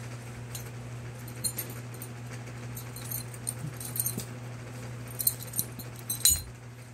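Small hard objects clicking and clinking as they are handled, a scatter of light, sharp clicks, the loudest near the end, over a steady low hum.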